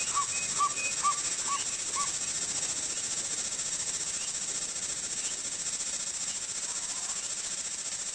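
Steady high-pitched insect chorus, with a bird repeating a short call about twice a second that stops about two seconds in.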